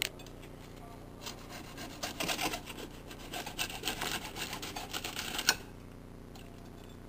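A table knife saws through the crisp fried crust of a deep-fried, pancake-battered block of instant ramen on a ceramic plate, in irregular rasping strokes. Toward the end comes one sharp clink, the loudest sound.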